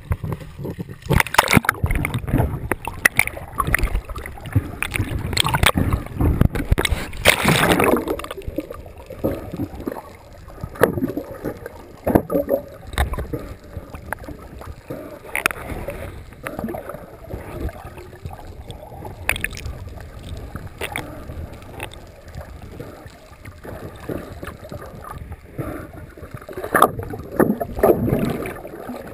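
Water sloshing, splashing and gurgling against a camera at the sea surface, with bursts of bubbling as it dips under. Loudest and busiest in the first several seconds, calmer and more muffled in the middle, with another loud splashy stretch near the end.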